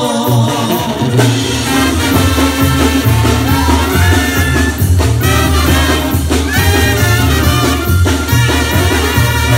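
Live banda music played loud: a sousaphone bass line under trumpets and trombones, with drums keeping the beat.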